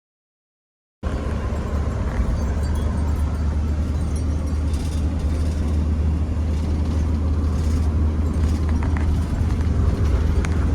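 Van driving at speed, a steady low rumble of engine and road noise, starting abruptly about a second in after dead silence.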